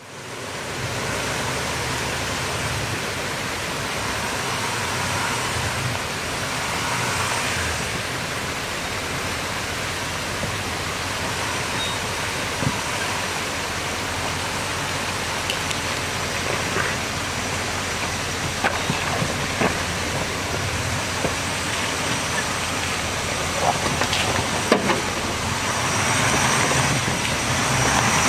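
Shallow creek water rushing steadily over rocks, under the low running of a Nissan Titan XD's Cummins turbo-diesel V8 as the truck crawls through the creek at low speed. Scattered sharp clicks and knocks of tyres on rock come in the second half, and the engine grows louder near the end as the truck climbs out.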